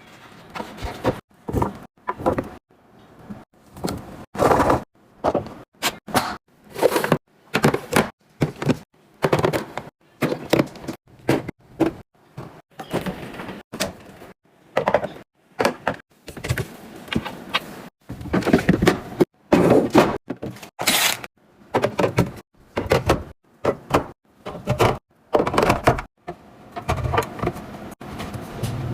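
Groceries and containers being unpacked and set into a refrigerator: an uneven run of knocks, clunks and clicks, often one to two a second, with short pauses between.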